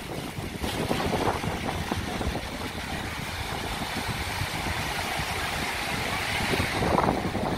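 Small waves breaking and washing up on a sandy shore, under a steady low rumble of wind buffeting the microphone.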